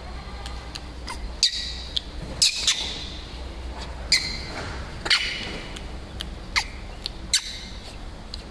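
A young monkey giving short, shrill squeals and screeches, about seven of them, each lasting a fraction of a second, over a low steady hum.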